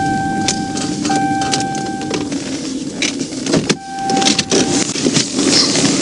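Police patrol car rolling to a stop, with steady vehicle and road noise and scattered clicks. A steady electronic tone beeps for about a second at a time, twice in the first couple of seconds and once more around the middle.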